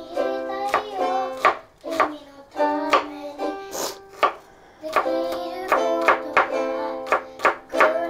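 Plucked-string music with held notes plays throughout, over irregular sharp knife taps on a wooden cutting board.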